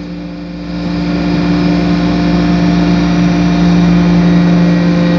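Hydraulic metal-chip briquetting press running: a steady hum from its pump and motor with a strong low tone, growing louder over the first second or so as the ram presses down into the chips, then holding steady.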